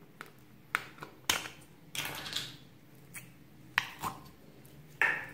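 Small plastic slime tub being handled and squeezed: a handful of sharp clicks and taps of the plastic, with a longer scraping, squelching rasp about two seconds in as the slime is worked out of the tub.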